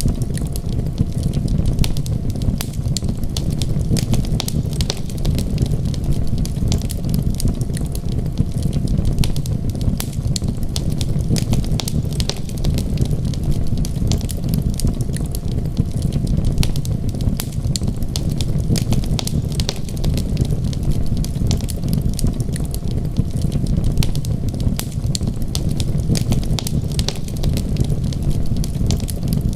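Wood fire crackling, with many small sharp pops in quick irregular succession over a steady low rushing noise bed.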